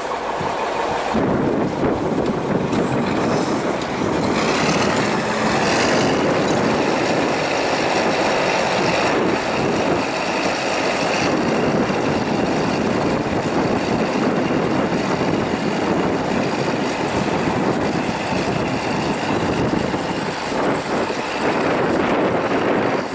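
KhTZ T-150K tractor's diesel engine running steadily under load as it pulls a five-furrow moldboard plough through the soil, with wind on the microphone.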